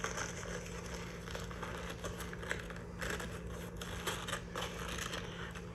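Paper burger wrapper crinkling and rustling in irregular crackles as it is pulled open by hand.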